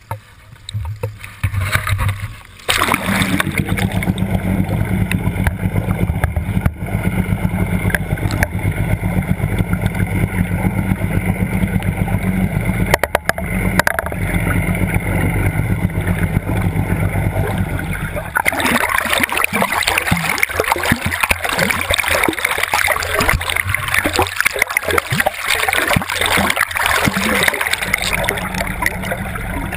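Motorboat engine running steadily under a wash of rushing water, coming in loud a few seconds in. About two-thirds of the way through, the engine hum falls back and choppy, gurgling water noise takes over.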